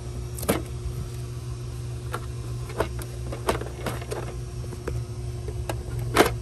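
A few sharp clicks and light knocks from handling, the loudest near the end, over a steady low hum.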